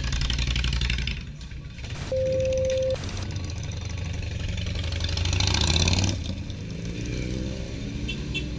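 Motorcycle engines idling and pulling away, with one bike getting louder as it passes about five to six seconds in. A steady beep sounds once for about a second, about two seconds in.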